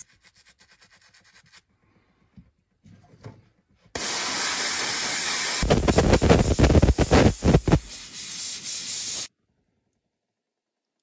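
A spray nozzle hissing as the carved gemstone is rinsed. The hiss starts suddenly about four seconds in, turns uneven with low rushing gusts, and cuts off abruptly about five seconds later.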